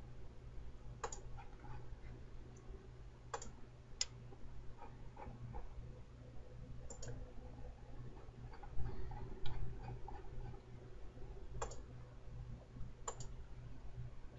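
Computer mouse button clicking, about half a dozen sharp single clicks at uneven intervals as line endpoints are placed in a drawing program, over a steady low hum.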